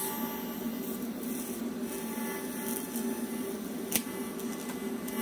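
TIG welding arc hissing steadily while tack-welding a threaded steel rod, run with the heat turned up. One sharp click about four seconds in, and a steady low hum underneath.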